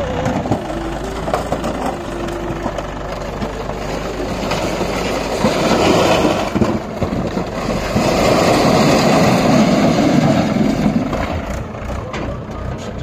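Heavy diesel engine running, swelling louder about six seconds in and again for a few seconds later on.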